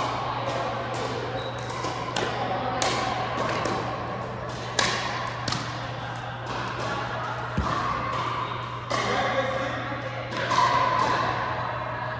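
Pickleball rally: solid paddles popping against a hollow plastic ball in many sharp, irregular hits that echo around the hall. Indistinct voices or music and a steady low hum run underneath.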